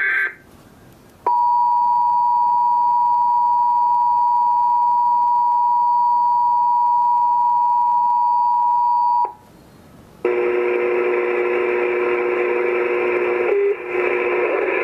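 NOAA Weather Radio 1050 Hz warning alarm tone sounding for a required monthly test: one loud steady beep held for about eight seconds, cut off sharply. About a second after it stops, a lower steady buzzing tone made of several fixed pitches starts and holds, with a brief dropout near the end.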